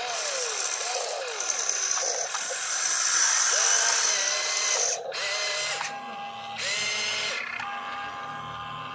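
Small electric motors and gearing of an RC excavator whining as the boom, arm and bucket move and the upper body swings, the pitch rising and falling with each movement, over stretches of higher grinding noise.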